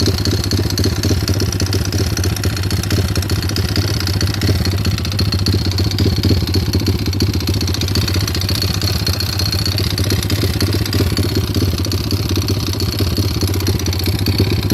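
Small single-cylinder pit bike engine idling steadily with a fast, even rattle from the top end. The owner can't tell whether it is a rod knock, valve noise or a loose timing chain.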